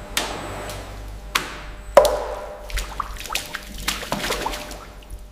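Whey splashing and dripping as a wire-mesh curd scoop is dipped into a stainless steel cheese vat and lifted out, curds pouring back off it, with several sharp knocks, the loudest about two seconds in.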